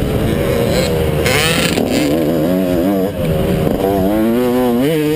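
Motocross bike engine heard close up from the onboard camera, revving up and down as the rider works the throttle through the track, with a brief dip about three seconds in.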